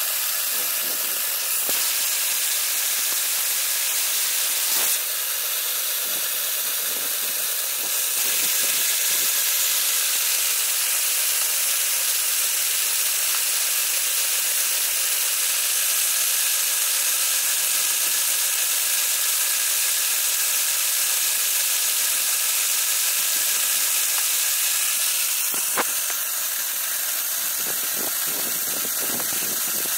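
Homemade model steam turbine running on steam from a model boiler, giving a steady high-pitched steam hiss with a faint thin whine through it as it drives a belt-coupled computer-fan generator under load. A single sharp click sounds near the end.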